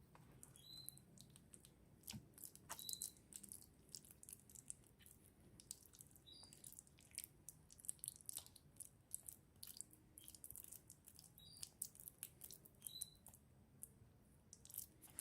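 Quiet kitchen sounds: scattered faint clicks and taps, with about five brief, faint bird chirps spread through.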